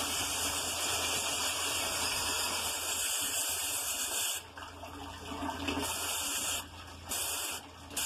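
Hose spray nozzle jetting water onto the fins of a walk-in cooler's evaporator coil, rinsing packed dirt out of the coil: a steady hiss that cuts out about four and a half seconds in, then comes back in two short spurts near the end.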